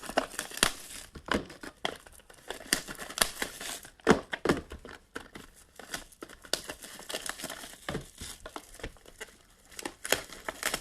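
Plastic shrink-wrap being torn and crumpled off sealed trading-card boxes: irregular crinkling and tearing.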